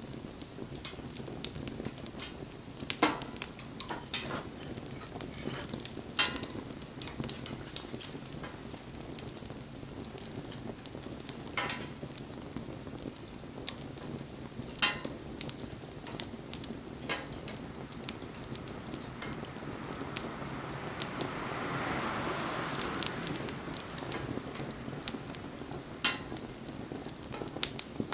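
Wood fire crackling with a steady hiss and scattered sharp pops. A louder hissing swell rises and fades about two-thirds of the way through.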